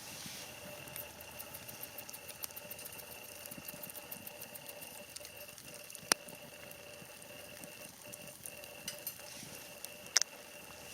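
Wood campfire crackling quietly, with two sharp pops, about six seconds in and near the end.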